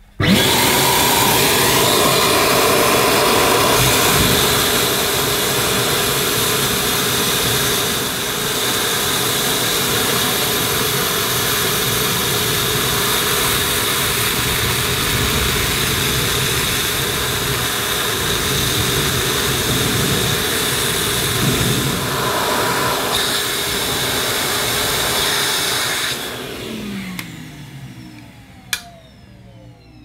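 Numatic Henry Wet & Dry (HWD370) vacuum cleaner's 1060 W motor switched on, running steadily while its nozzle sucks up water draining from a washing machine's pump-filter spout. About 26 seconds in it is switched off and the motor winds down with a falling whine, followed by a click near the end.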